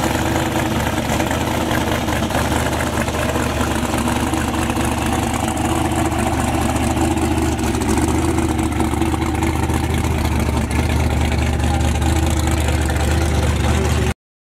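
Supercharged V8 hot-rod engine idling steadily, with the car rolling away near the end. The sound cuts off suddenly just before the end.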